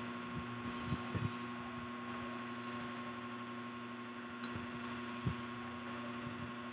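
Faint eating sounds, a few soft short clicks and chews as french fries are eaten, over a steady electrical hum.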